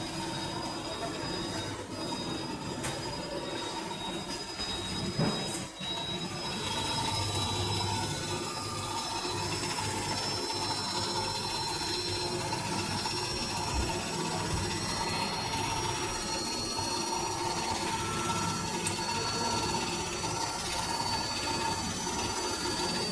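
Electrolux W555H professional washing machine running, its motor and drum giving a steady mechanical whine whose high tones rise slowly in pitch as the drum gathers speed. A brief knock comes about five seconds in.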